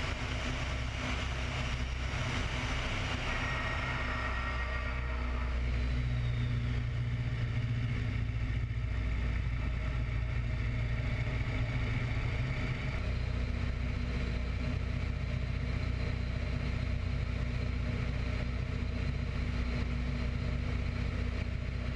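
Open-cockpit biplane's radial engine running steadily in flight, with wind noise. A faint high whine falls in pitch over the first several seconds.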